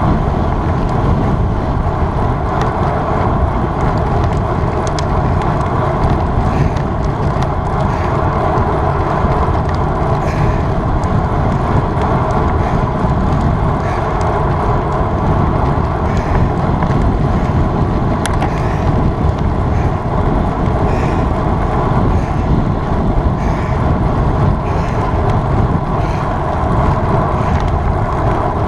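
Steady wind rush and road noise on the microphone of a camera carried on a moving road bicycle at riding speed.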